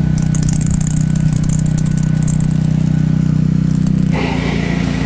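Gas-engine pressure washer running steadily, its high-pressure water spray hissing and spattering against a riding mower's body. About four seconds in the spray sound changes to a steadier hiss while the engine carries on.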